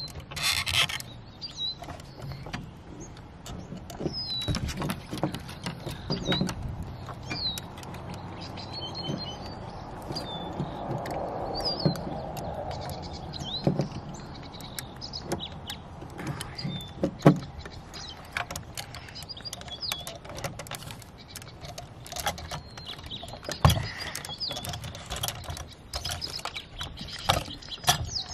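Irregular clicks and knocks from a die-cast First Gear front loader garbage truck model and its toy dumpster being worked by hand, the lift arms pivoting and the bin rattling, with small birds chirping in the background.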